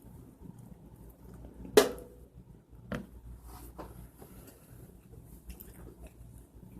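A person chewing and biting into food close to the microphone, with small wet clicks. There is a loud sharp knock about two seconds in and a smaller one about a second later.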